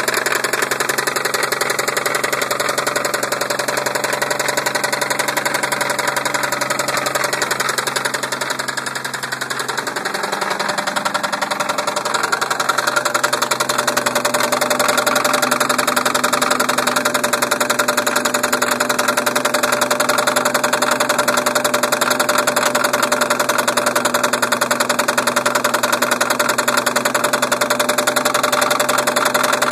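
1990 Toyota Supra Turbo's 7M-GTE turbocharged inline-six running steadily with a constant rhythmic knock from inside the engine. The level dips briefly around ten seconds in, then the engine runs on a little louder.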